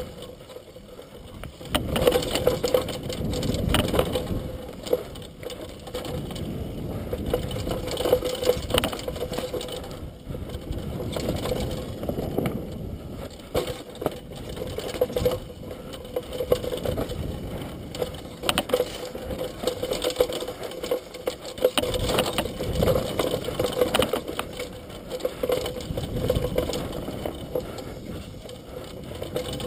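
Mountain bike descending a rough dirt trail: a continuous rattling clatter from the bike's chain, frame and parts, with frequent knocks as it goes over bumps.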